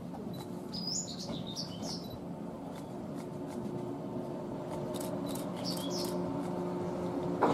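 Shinano Railway 115-series electric train running slowly in toward the platform, a steady low hum that grows gradually louder. Small birds chirp in two short bursts, about a second in and again around six seconds, and a single sharp knock comes near the end.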